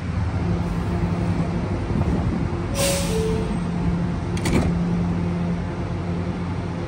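R211S subway train standing at the platform with a steady hum from its equipment. About three seconds in, its doors close with a falling two-tone chime and a short hiss of air, and a second short hiss follows a second and a half later.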